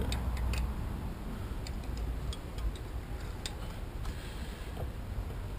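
Scattered light clicks and ticks at irregular spacing, from hand work on the flywheel as the wire hanger is hooked around it, over a low steady background rumble.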